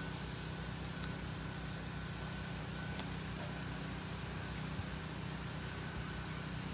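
Steady outdoor ambience: an even hiss with a constant low hum underneath, and one faint click about three seconds in.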